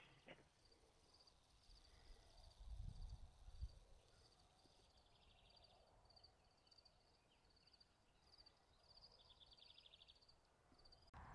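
Near silence: faint outdoor ambience with a high, thin chirp repeating about twice a second and two short buzzy trills. A brief low rumble comes about three seconds in.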